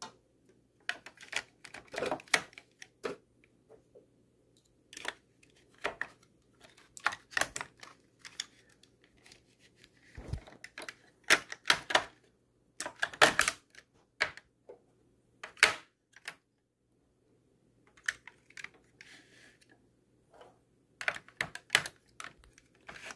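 Irregular clacks and clicks as D-cell batteries are set one by one into a Nerf Vulcan's plastic battery tray, the metal cans knocking against the plastic, the spring contacts and each other.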